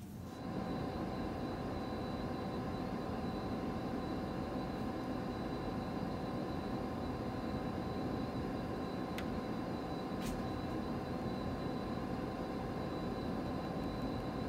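Canon imagePROGRAF PRO-4100 large-format printer running with a steady whirring hum made of several held tones, starting just after a cut sheet is fed into its slot. Two faint ticks come about two-thirds of the way through.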